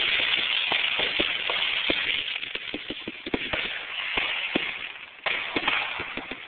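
Firework fountain spraying sparks: a steady hiss with many sharp crackling pops through it. The hiss surges again suddenly about five seconds in.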